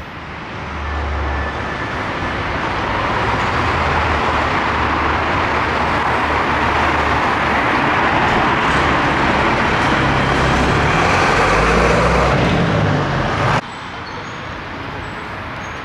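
Road traffic noise with a low rumble, rising over the first few seconds and then holding steady. About three-quarters of the way through it cuts off abruptly, leaving a quieter street background.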